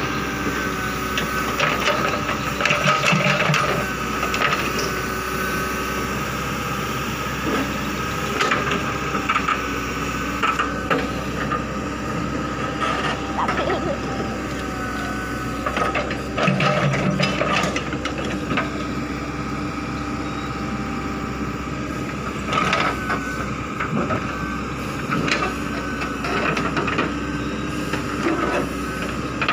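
JCB 3DX backhoe loader at work: its diesel engine runs steadily, with occasional knocks and scrapes from the bucket and arm as it digs.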